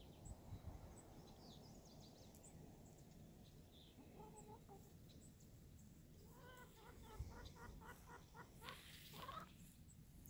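Hen clucking, faint: one short call about four seconds in, then a quick, evenly spaced run of about nine clucks over a couple of seconds past the middle.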